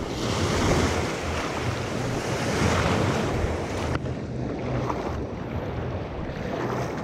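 Small surf waves washing and breaking in shallow water, with wind rushing over the action camera's microphone. About four seconds in the sound changes abruptly and loses much of its high hiss.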